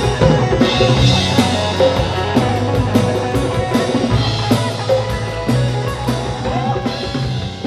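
Fusion band music: a drum kit keeping a beat over bass and sustained pitched instruments.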